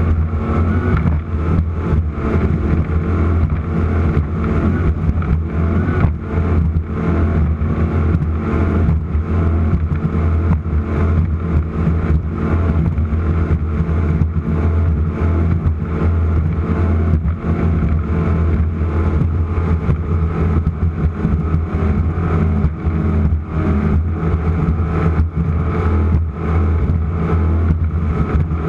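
Offshore racing powerboat's engines running steadily at high speed: a deep, even drone broken by many short knocks.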